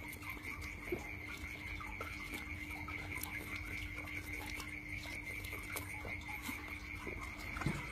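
A man drinking beer straight from a bottle with head tipped back, the swallows faint, over a steady high-pitched night chorus and a low steady hum.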